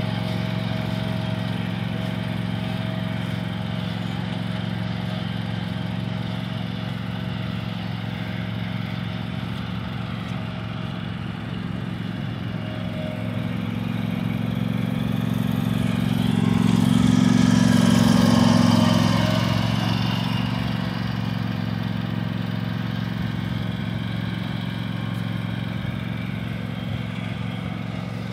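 Riding lawn tractor's engine running at a steady speed as it drives across grass, growing louder for a few seconds just past the middle as it passes close by.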